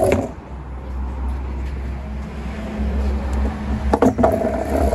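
Low, continuous rumble of a car engine running close by, with a steady hum through the middle; a couple of short knocks about four seconds in.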